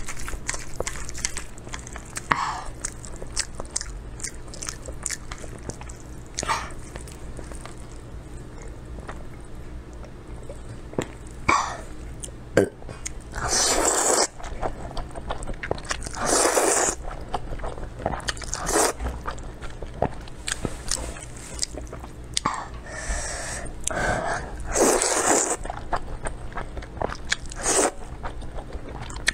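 Close-up eating sounds of spicy instant noodles: several loud slurps as strands are drawn in through the lips, the longest about a second, between wet chewing and small mouth clicks.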